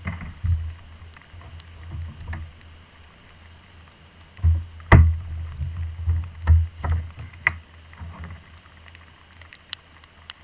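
Knocks and thumps of gear being handled on a plastic fishing kayak, carried through the hull into the kayak-mounted camera and loudest in a cluster about halfway through, over a steady low rumble. A few light ticks follow near the end.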